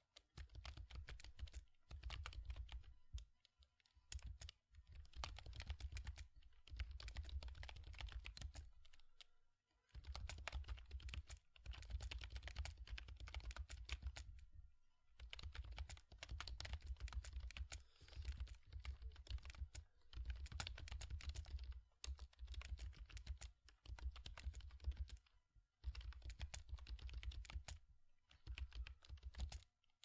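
Typing on a computer keyboard: rapid runs of key clicks in bursts of a few seconds, with short pauses between them.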